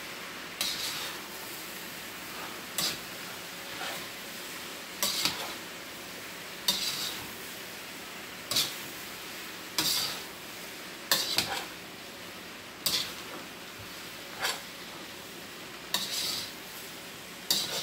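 Spatula scraping and tossing beef and broccoli stir-fry in a wok-style pan, a short clattering scrape about every one and a half seconds. Under it is a faint steady sizzle from the pan, with the burner just turned off.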